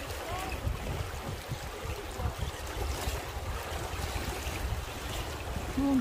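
River rapids rushing and splashing around an open river boat, under a deep, steady rumble.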